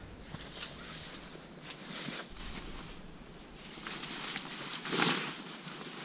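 Rustling of a tent's dense Oxford-type floor fabric being handled and fitted, with soft scrapes and a louder rustle about five seconds in.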